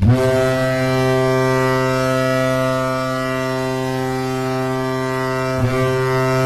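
The Colorado Avalanche's ice hockey goal horn blowing one long, steady, deep tone rich in overtones, with a brief break near the end.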